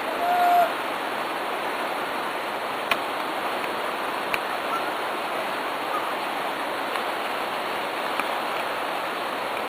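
River water rushing steadily, with a few faint short chirps and clicks over it.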